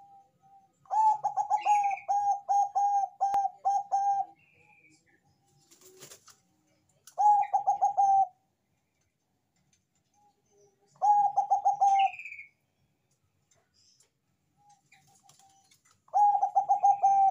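Zebra dove (Bangkok perkutut) singing its cooing song: bouts of quick, clipped, repeated coo notes. There are four bouts with pauses of a few seconds between them, and the first is the longest.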